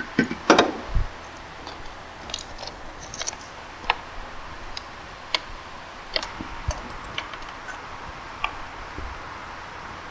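Irregular light clicks and a few dull knocks of hard parts being handled as an LED headlight is fitted into its mounting.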